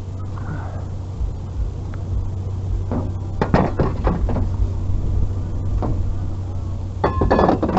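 A vehicle running with a steady low hum. There are clusters of knocks and rattles about three and a half seconds in and again near the end.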